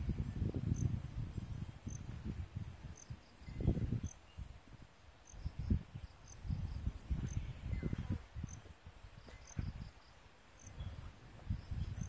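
Wind rumbling on the microphone in uneven gusts, with a faint insect making short high chirps roughly once a second.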